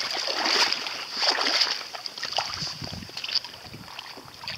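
Shallow seawater sloshing and splashing over pebbles and rocks at the water's edge, in irregular soft surges.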